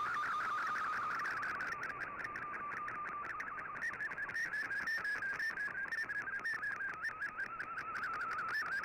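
Digital-mode data signal from a shortwave receiver: a fast, steady warble of tones that step up and down in pitch many times a second, which is a shortwave broadcast carrying encoded text or images.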